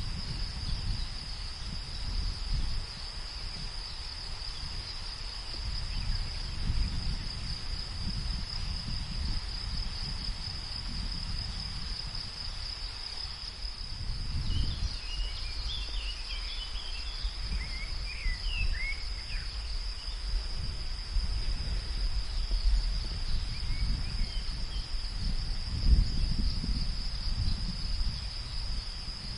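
Steady, high-pitched chorus of insects over a low rumble of wind that swells and fades, with a few short bird chirps around the middle.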